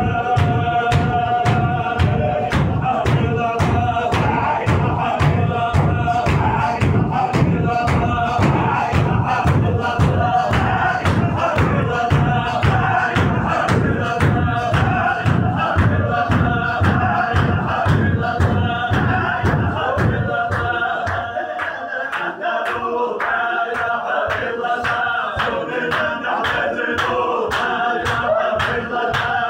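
A circle of men chanting a Sufi zikr in unison, loud and continuous, over a fast, even beat. About two-thirds of the way through the heavy low beat falls away and the chanting carries on.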